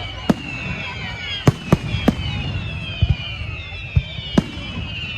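Fireworks display: many overlapping whistles sliding down in pitch, with sharp bangs going off every half second to a second.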